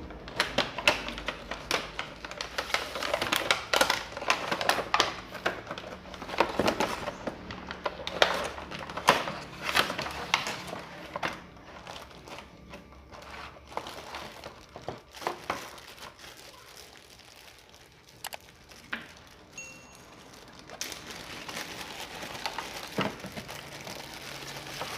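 Packaging of an action camera being opened and emptied by hand: plastic wrapping crinkling and rustling, with small clicks and knocks. Busiest over the first ten seconds or so, sparser past the middle, then picking up again near the end.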